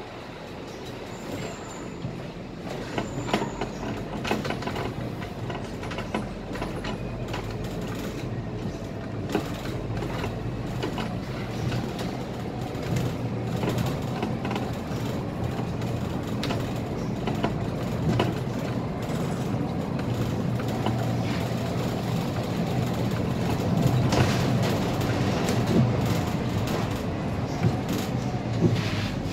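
Scania K320 IA articulated city bus on the move, heard from the driver's cab: a steady engine drone with frequent clicks and rattles, growing gradually louder.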